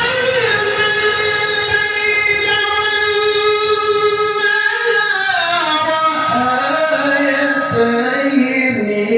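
A male Quran reciter chanting in melodic tilawah style, drawing out long held notes with ornamented turns; the pitch slides down about five seconds in.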